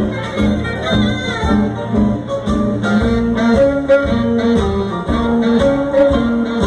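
Live band music: saxophone, electric guitar and drums playing a 1950s-style number with a steady beat.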